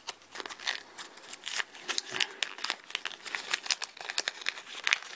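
A small folded paper instruction leaflet from a Kinder Surprise egg being unfolded by hand, crinkling with many quick, irregular crackles.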